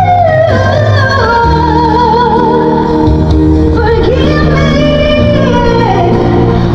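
Background music: a woman singing a held, wavering melody over a steady bass and instrumental backing.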